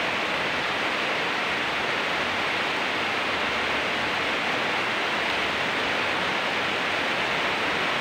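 Steady rainfall, an even hiss with no breaks.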